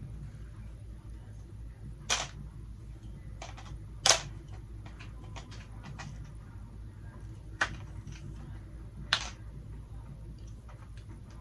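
Clicks and knocks of a ring light stand's plastic and metal parts being handled and adjusted: four sharp ones spread through, the second loudest, with fainter ticks between, over a steady low hum.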